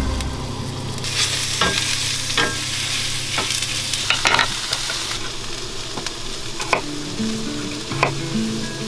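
Sliced onions sizzling as they fry in a stainless steel sauté pan, with several sharp taps of a utensil or knife spread through.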